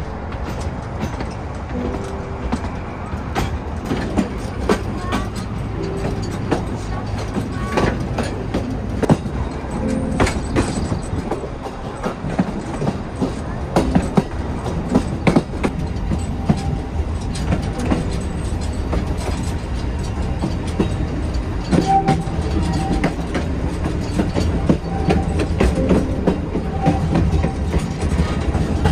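The Baie de Somme heritage train running along the track: a steady rumble of wheels on rail, with frequent clicks and short squeaks and creaks from the carriages.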